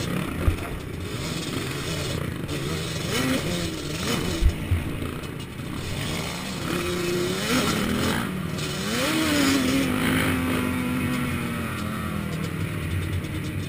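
Racing quad's engine heard from the rider's helmet, revving up in several quick climbs and then holding a steady pitch at speed. Two short thumps, about half a second in and about four and a half seconds in.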